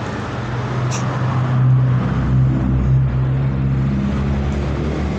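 A motor vehicle engine running close by: a steady low hum that rises a little in pitch about two seconds in and settles again. A single sharp click about a second in.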